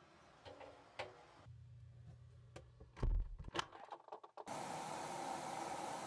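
A front-loading washing machine: a heavy thump and a few sharp clicks as it is closed and set, then, from a little past halfway, a steady hiss of water spraying into the drum as the self-cleaning cycle starts filling.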